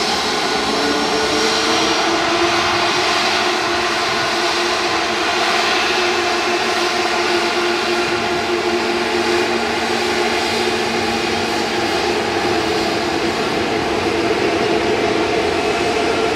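Jet airliner engines running loud and steady: a dense rush of noise with several steady whining tones through it.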